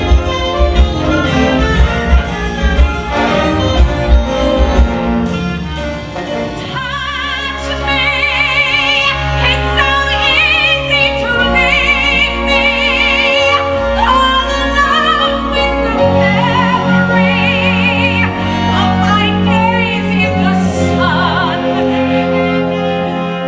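Stage-musical orchestra playing, with a pulsing beat for the first few seconds; from about seven seconds in, a high sung melody with wide vibrato rides over sustained orchestral chords.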